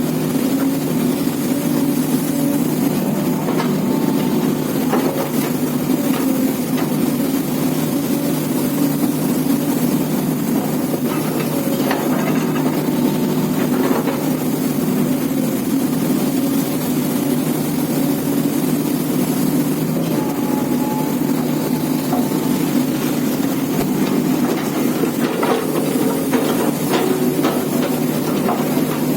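Heavy diesel machinery running steadily at a loading site, with a few faint knocks and clanks over the engine: an excavator working and loading trucks.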